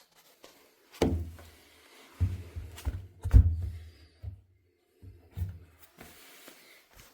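A run of irregular knocks and heavy thuds, about eight in all, several followed by a brief low rumble.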